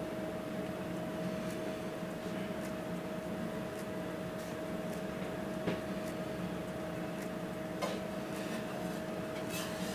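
Steady hum of commercial kitchen equipment with one constant tone. A few faint light clicks in the second half come from a plastic spoon stirring salsa in a small plastic cup.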